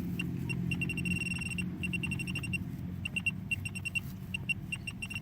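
Metal-detecting pinpointer beeping as it is probed in the hole: a high tone held for about half a second early on, then quick pulsing beeps in short runs. With its battery low, it is signalling at damp soil.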